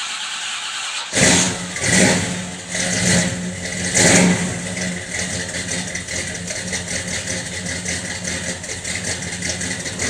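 An engine starts up about a second in and runs steadily, with a few brief surges in the next few seconds.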